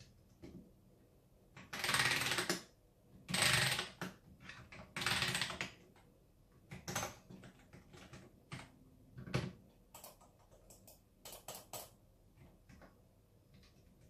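Typing on a custom mechanical keyboard built on a DZ60RGB board with Akko CS Matcha switches: three quick runs of keystrokes in the first half, then scattered single key clicks.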